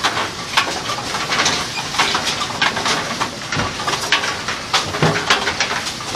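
Kegel Pin Shine pin-cleaning machine running with a steady churning noise, broken by frequent irregular knocks and clatter as bowling pins are handled and knock about in the foam-filled tub.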